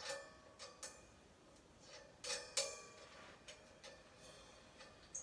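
A 16-inch Meinl Classics Custom Dark crash cymbal clinking lightly against its stand's metal hardware as it is fitted on, with a faint ring after each touch. About eight small taps and clinks, the loudest two close together about two and a half seconds in.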